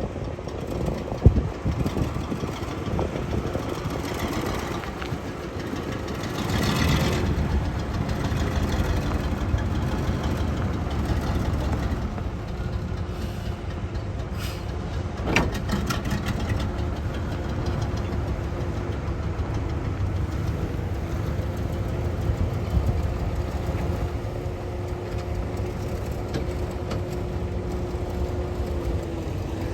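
The heavy engine of earthmoving machinery runs steadily with a low drone. There is a sharp knock about a second in and another about halfway through.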